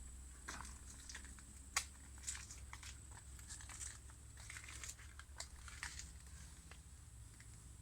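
Faint, irregular crackling and rustling clicks, the sharpest a little under two seconds in, over a low steady hum.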